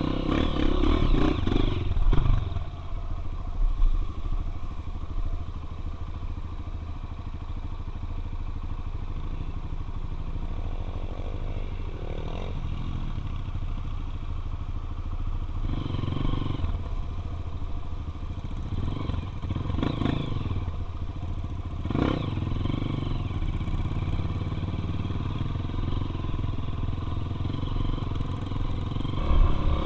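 Single-cylinder four-stroke dirt bike engine running steadily on a trail ride, with a few brief surges in revs partway through.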